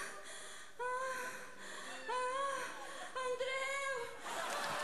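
A woman faking an orgasm with three long, high-pitched moans, each held about a second, the pitch swelling and falling. Audience applause breaks out near the end.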